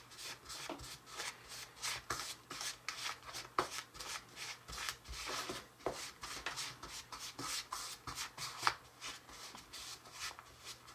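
Fingers rubbing and crumbling dry, crumbly cookie dough mix in a small plastic bowl: faint, irregular scratchy rustling strokes, several a second.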